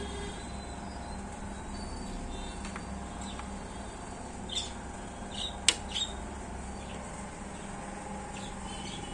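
Smartwatch being handled: a single sharp click a little past the middle, over a steady background hum with a few short high chirps around it.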